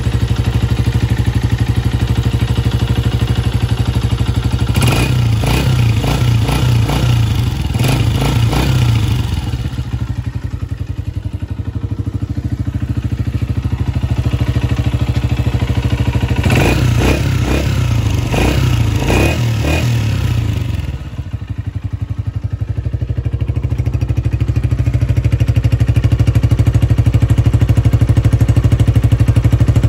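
Honda CG 125 SE's single-cylinder four-stroke engine idling steadily, heard close up, with two spells of louder, rougher sound about five and sixteen seconds in. To the owner's ear it runs with no unusual mechanical noise.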